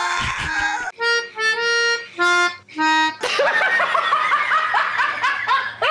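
Voice-message recording playing: four short held musical notes, then from about three seconds in a long shrill screeching sound, a pterodactyl-screech imitation.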